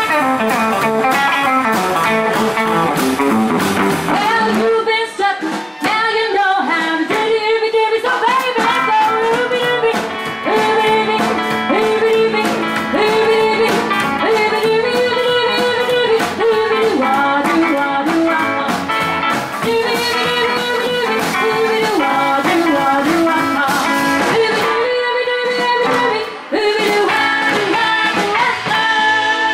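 Live rockabilly band playing: electric and acoustic guitars, upright bass and drums. A woman's singing comes in about five seconds in, over the band.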